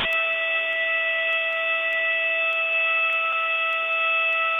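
A steady electronic tone, one pitch held without change, heard through a telephone line.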